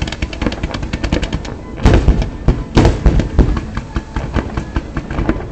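Fireworks going off: a rapid string of sharp bangs, about eight to ten a second, with two heavier booms about two and three seconds in, then more quick bangs.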